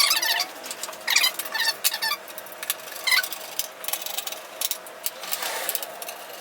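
Screws being turned by hand with a screwdriver into T-nuts through a golf cart seat frame and plywood base: short bursts of metal clicking and scraping, coming in irregular spurts.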